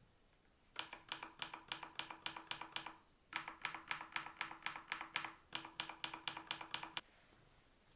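Typing on a Kzzi K75 gasket-mounted mechanical keyboard: three runs of quick keystrokes, about five a second, with short pauses between.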